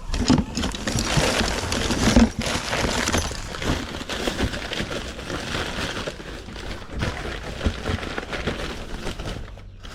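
Packing paper rustling and crinkling as small ornaments are unwrapped and handled, with many small clicks and knocks of the pieces, stopping shortly before the end.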